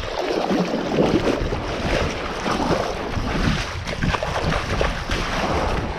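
Wind buffeting the microphone over the wash of surf, in uneven gusts.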